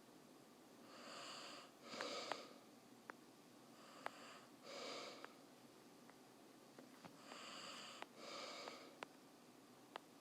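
A person breathing audibly close to the microphone, with about five slow breaths, and several faint, sharp clicks scattered between them.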